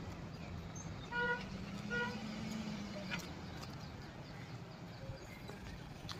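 A vehicle horn beeps twice, short beeps less than a second apart, over the low steady hum of a car engine idling.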